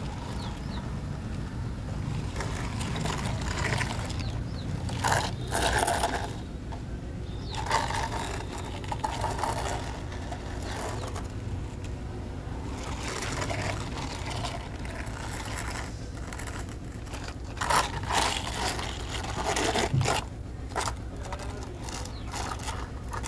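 A small motor running steadily, with irregular scraping and crunching bursts over it.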